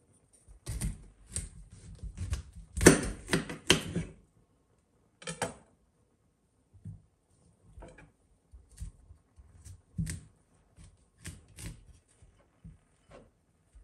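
A small spice grinder twisted in quick turns, a dense run of gritty clicks lasting about three seconds. Then a fresh head of broccoli is handled and its florets are snapped off, scattered crisp cracks about once a second.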